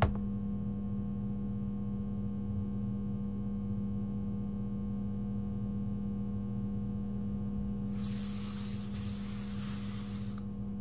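A steady low hum, with a short click at the very start and a spell of soft hiss that starts about eight seconds in and stops shortly before the end.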